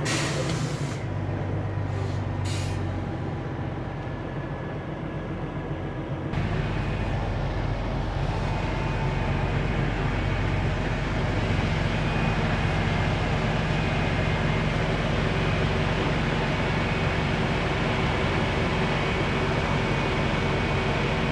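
Semi truck's diesel engine running, heard from inside the cab, with two short air-brake hisses near the start. About six seconds in the sound changes abruptly to a steady drone of the engine idling with the truck standing still.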